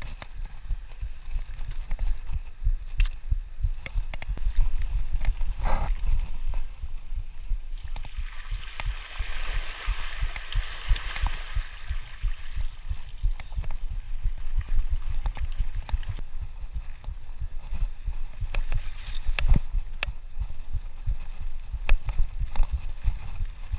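Mountain bike riding heard through an action camera's microphone: a continuous low rumble of wind and jolts buffeting the mic, with scattered knocks from the bike over the rough trail. A hiss of tyres on loose gravel is strongest about a third of the way in.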